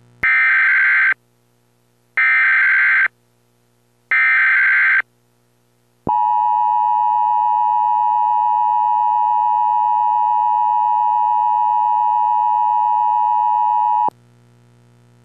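Emergency Alert System alert: three short, raspy digital header bursts about two seconds apart, then a loud, steady attention tone that holds for about eight seconds and cuts off sharply. A faint low hum runs underneath.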